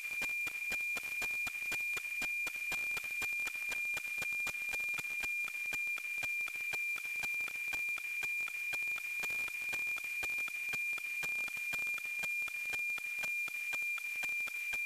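NOAA-19 weather satellite's APT image signal as received on an RTL-SDR radio: a steady high tone with fast, regular ticking over a hiss of static. The signal is clear and strong.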